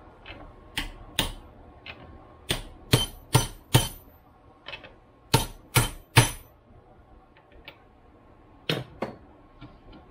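Hammer blows on the steel yoke of a double cardan driveshaft clamped in a bench vise, knocking the universal joint apart. About a dozen sharp metallic strikes come in quick groups of two to four, with a bright ring after the loudest.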